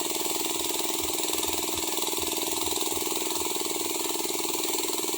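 Engine of a Sanchin MS30 power sprayer running steadily at a constant speed.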